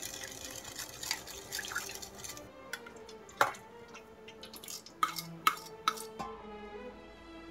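Running and dripping water, then a few sharp knocks or clinks, over background music that is left on its own near the end.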